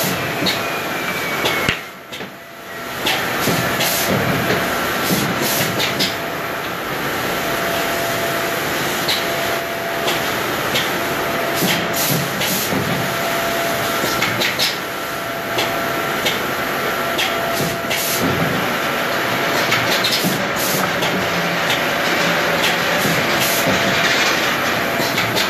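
Woodworking machine with dust extraction running steadily as board strips are fed through it, with frequent short knocks of wood being handled and moved. The noise dips briefly about two seconds in.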